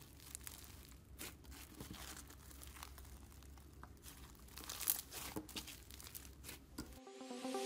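Faint crackling and crinkling of foam-bead slime (floam) as hands squeeze, stretch and knead it, the beads giving off many small clicks and pops, busiest about five seconds in. Near the end it cuts off and electronic music begins fading in.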